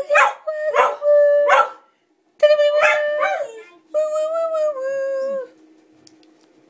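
Collie howling along to a tune: short yelps in the first three seconds, then long wavering howled notes that slide down in pitch and break off about five and a half seconds in.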